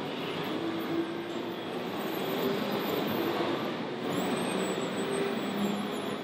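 Small electric motor and servo whine from a model timber truck's loading crane as its grapple holds and lifts a bundle of logs, coming and going over a steady background din of a busy hall.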